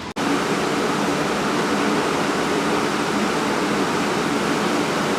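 A steady, even rushing noise that starts abruptly after a brief dropout at the very start, with a faint low hum running through it.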